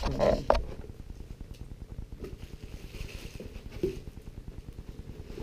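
Faint rustling and handling of a cardboard box packed with bubble wrap, with a brief louder clatter at the very start.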